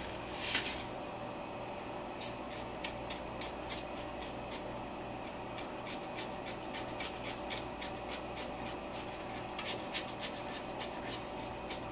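Soaked basmati rice going into the Instant Pot with the chicken: a short rush as it is tipped in, then many light ticks and scrapes of a spoon spreading it around the pot.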